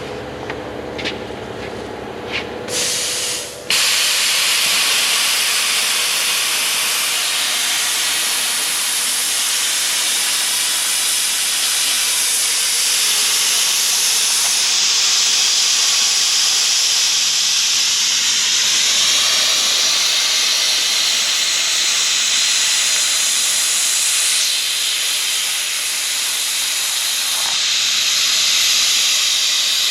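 Plasma cutter cutting through the steel of a dozer blade, a loud steady hiss that starts almost four seconds in after a short sputter.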